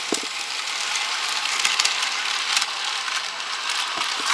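Battery-powered N gauge toy locomotive running on plastic track, its small motor and gears giving a steady rattle as it hauls a long train of carriages.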